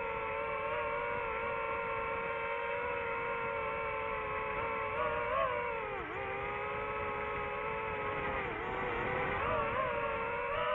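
DJI FPV drone's motors and propellers whining steadily, the pitch dipping briefly twice as the throttle eases off and comes back.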